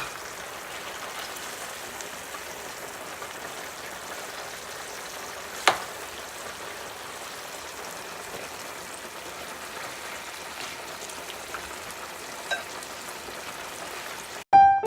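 Chicken and vegetables in a creamy sauce sizzling steadily in a frying pan, with a few sharp clicks. Piano music starts just before the end.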